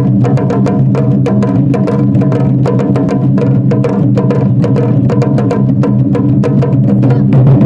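Percussion music: rapid, evenly paced wooden clicks, about five a second, over a sustained low tone.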